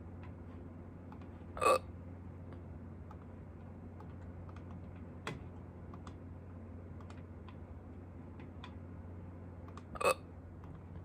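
A person hiccuping: two short, sharp hiccups about eight seconds apart, over a low steady hum.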